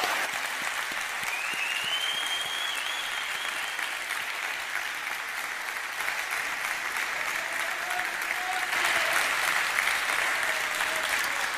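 Auditorium audience applauding steadily, the clapping growing a little louder about three-quarters of the way through.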